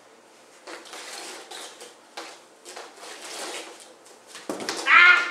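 Two hula hoops swishing and rattling in uneven strokes as they spin around a person's waist. A short, loud, high-pitched yelp comes near the end.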